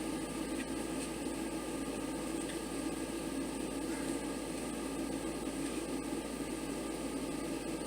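Steady background hum and hiss, like a fan or room noise, with a few faint light clicks.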